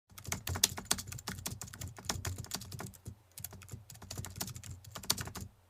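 A rapid, irregular series of light clicks and taps, like keys being typed. It starts abruptly and pauses briefly twice.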